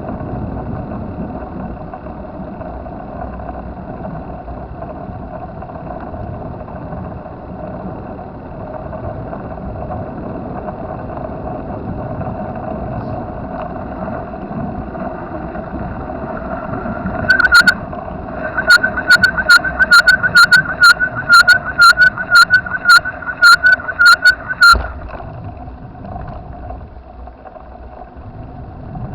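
Steady road and riding noise from a bicycle ride. About two-thirds of the way through, a loud electronic beeper sounds a little over twice a second for about seven seconds, then stops suddenly.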